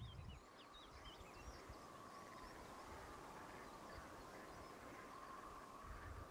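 Faint outdoor nature ambience: a few quick high bird chirps in the first second or so, over a faint steady, slightly wavering hum, with low wind rumble near the start and again at the end.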